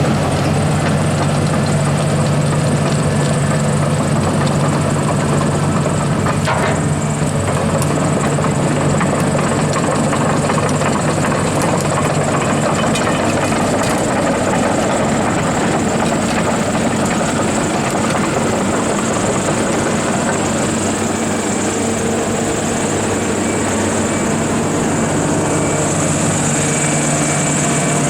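Cat 320DL excavator's C6.4 ACERT diesel engine running steadily, with a high whine on top that grows stronger near the end.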